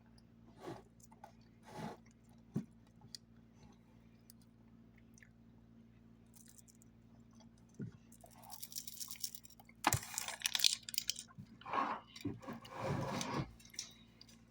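A person chewing and crunching snack food close to the microphone: a few soft bites at first, then busier, louder crunching and crackling over the last several seconds.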